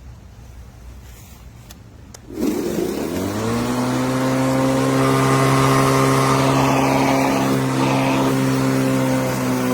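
Brushless electric lawn mower motor starting: two faint clicks, then the motor and blade spin up over about a second and settle into a steady, even running hum.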